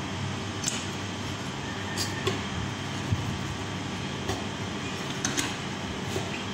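Steady background hum with a few short, sharp clicks and knocks scattered through it, from the metal fruit press and its fruit being handled.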